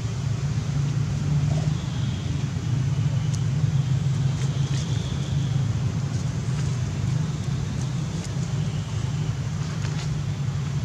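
Steady low background rumble, with a few faint scattered ticks.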